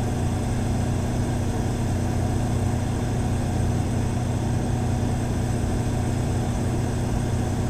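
Cummins Power Connect residential standby generator with the Level 2 sound kit, running at full load. It gives a steady, even engine hum with a low tone and no change in speed.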